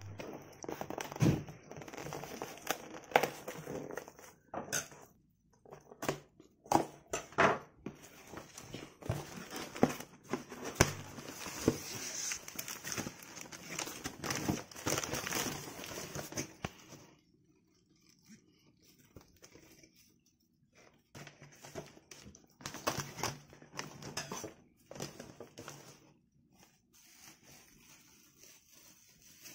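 Cardboard record mailer being handled and opened: irregular rustling, crinkling and tearing of cardboard and paper packing, with scattered sharp taps and knocks. It goes quieter from a little past halfway, then picks up again with sparser rustles.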